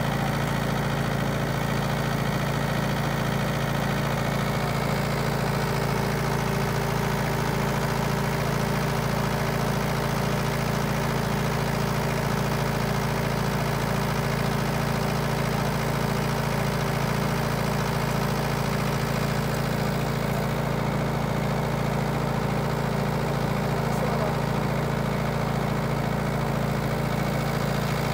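Mahindra tractor's diesel engine running steadily at a constant speed with an even, pulsing beat, powering a pipe pump that draws water out of the canal through a large hose.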